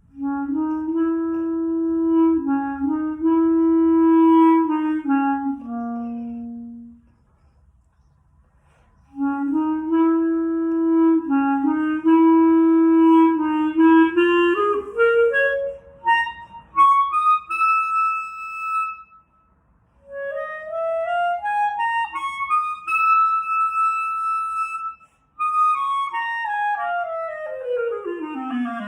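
Solo clarinet playing a blues tune: two phrases in the low register broken by a short pause, then the line climbs to long held high notes, with a rising run between them and a falling run near the end.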